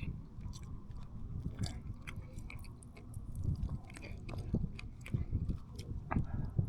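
A person chewing a mouthful of pan-cooked trout fillet close to the mic, with soft irregular mouth clicks and smacks.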